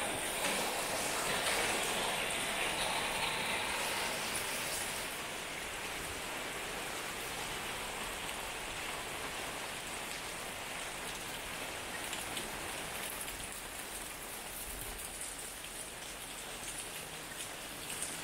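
Steady rain falling on a wet street and pavement, an even hiss of drops, a little louder in the first few seconds.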